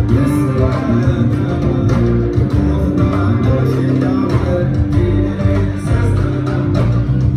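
Live Tuareg desert blues band playing: electric guitar lines over bass guitar, with a man singing lead.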